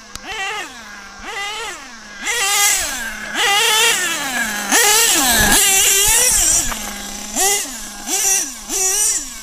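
Modded Picco .28 P3 two-stroke nitro engine in an HPI Savage X RC monster truck, blipped in short bursts from idle, then held at high revs for a few seconds in the middle before the revs fall away slowly. Three more quick throttle blips follow near the end.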